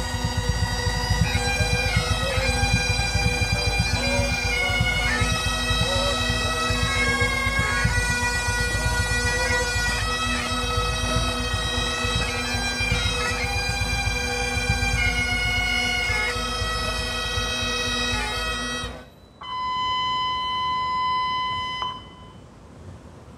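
Bagpipes playing a slow tune over their steady drones, with wind rumbling on the microphone. The piping cuts off suddenly about 19 seconds in, and a single steady high tone follows for about two and a half seconds.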